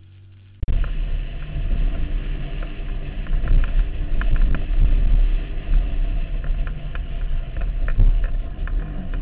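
Off-road vehicle engine running hard while driving over sand dunes, with scattered clicks and knocks from the bouncing vehicle. It cuts in suddenly about half a second in, after faint music.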